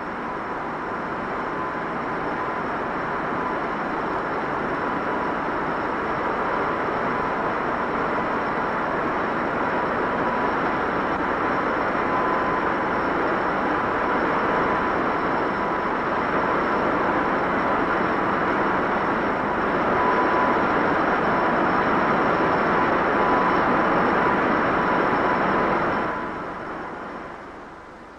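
Avrocar VZ-9 hovering in ground effect, its turbojet-driven central fan making a loud, steady rushing roar with a thin steady whine, swelling slowly and then fading away near the end.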